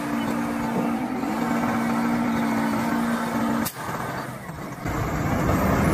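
Heil front-loader garbage truck running with a steady hum while its front arms lift a container over the cab and tip trash into the hopper. The sound cuts off abruptly about four seconds in, then a lower, quieter engine rumble builds near the end.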